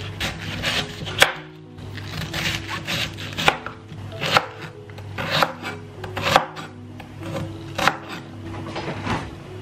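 Steel cleaver slicing through a half cabbage onto a wooden chopping board: crisp crunching cuts, each ending in a knock of the blade on the board. There are a dozen or so strokes at an uneven pace, about one to two a second.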